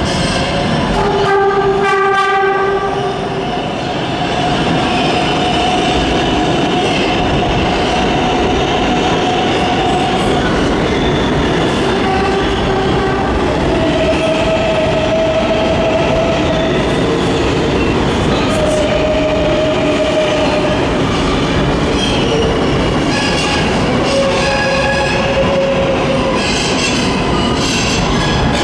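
New York City subway train running through the tunnel: a steady loud rumble, a horn blast about a second in, and long high-pitched wheel squeals that come and go.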